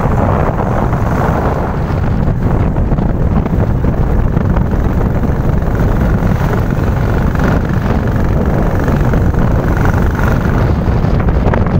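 Steady, loud wind buffeting the microphone on a moving motorcycle, with the motorcycle's engine running underneath.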